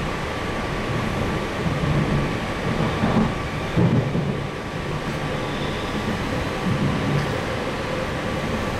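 Inside a moving electric passenger train: the steady rumble of wheels running on the rails, with irregular low swells and a couple of louder jolts about three and four seconds in, over a thin steady whine.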